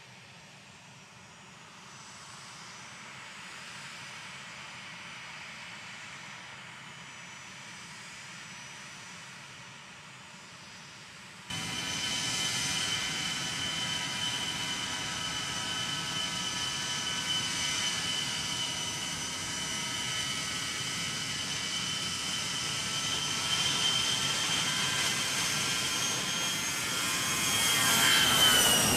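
A-10 Thunderbolt II's twin General Electric TF34 turbofan engines whining. The sound is fainter at first, then about eleven seconds in it jumps much louder and closer, with a steady high-pitched whine over the jet rush. Near the end it swells to its loudest and drops in pitch as the jet rolls fast past close by.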